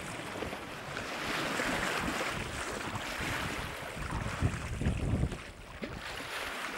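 Sea water rushing and splashing along the hull of a sailboat under way, with wind buffeting the microphone now and then, most of it a little past the middle.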